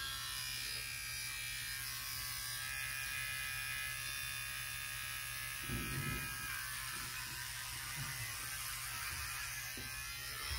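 Electric hair clippers running with a steady buzz while being run through a full beard along the jaw.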